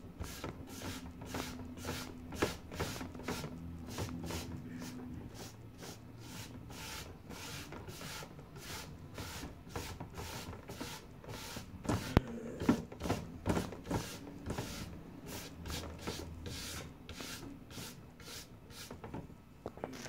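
Scrubbing the surface of a freshly grouted stained-glass mosaic, a steady run of quick scratchy rubbing strokes, about two or three a second, as grout is cleared off the glass. A few sharper knocks come about midway.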